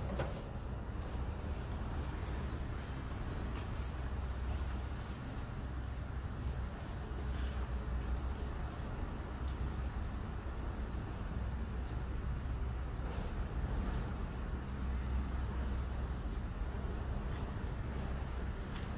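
A cricket chirping, short high chirps repeating at an even pace, over a steady low rumble.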